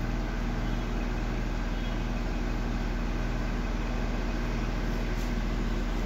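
Drain pump of an LG Direct Drive front-loading washer-dryer running with a steady hum as it pumps the water out of the drum.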